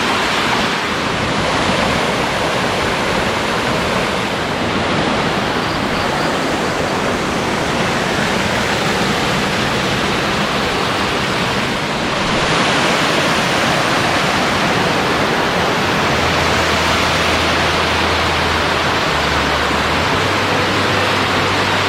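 A waterfall's water crashing down, a loud steady rush.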